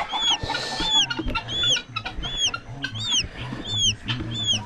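Baby poultry chicks peeping steadily, about two high peeps a second, with lower chicken clucking underneath.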